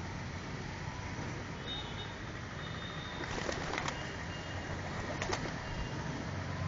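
A flock of pigeons feeding, with quick runs of wing claps from birds flying in, once about halfway through and again a little after five seconds, over a steady low hum.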